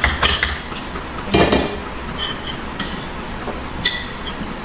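Cutlery and dishes clinking during a meal: a handful of separate sharp clinks of utensils against plates, each with a short high ring.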